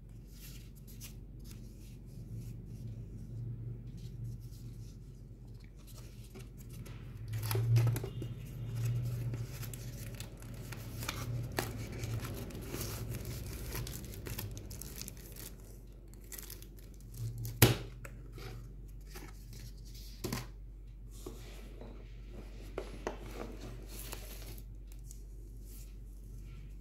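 Cardboard retail box of a portable speaker being handled and opened by hand: the box sleeve slides off and the inner tray and foam-wrapped speaker are lifted out, with rustling wrap, scrapes and scattered clicks and knocks over a low steady hum. The loudest knock comes about a third of the way in, and a sharp click a little past the middle.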